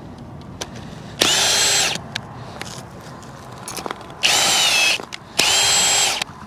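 Ridgid cordless drill with an ice-anchor adapter in its chuck, its motor whining in three short trigger bursts, each under a second long.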